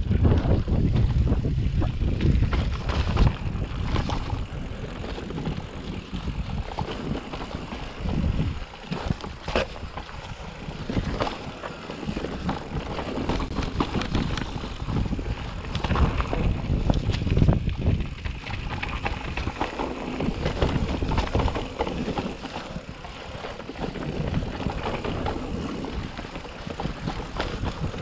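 Gusty wind buffeting the microphone, swelling and easing every few seconds, with a few brief knocks.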